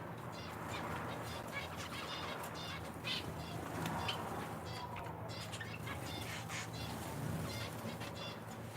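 A roomful of cage finches, zebra finches among them, giving many short nasal chirps and calls in quick, overlapping succession over a steady low hum.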